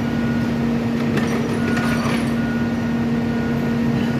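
Engine of a railroad track-repair work machine running steadily with a constant low hum, with a few faint metallic clicks about a second and two seconds in.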